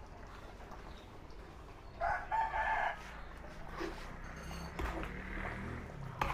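A rooster crows once, about two seconds in, a call of about a second in two parts. Later come a few soft knocks of a ladle stirring a large wok of stew over a low steady background.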